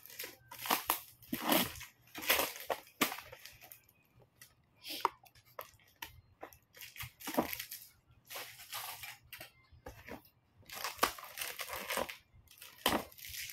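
Clear plastic packaging crinkling and tearing in irregular rustles as it is pulled and peeled off by hand.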